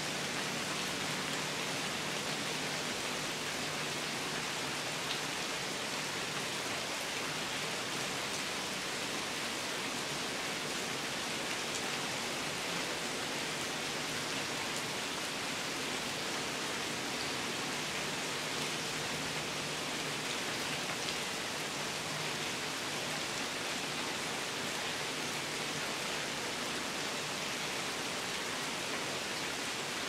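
Steady rain falling on tree foliage: an even hiss with faint scattered drop ticks. The low end is cut away by a high-pass filter.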